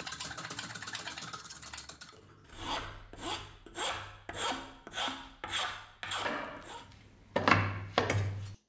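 Sandpaper scraping back and forth along a beech wood handle: fast, continuous rasping at first, then slower, even strokes about every half second. Two loud knocks come near the end.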